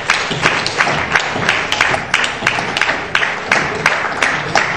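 Audience applause, with sharp single claps standing out in a fast, fairly even beat of about five a second.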